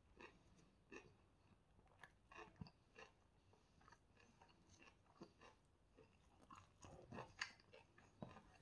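Faint close-up chewing of chicken shawarma, with irregular soft crunches and mouth clicks that are a little louder near the end.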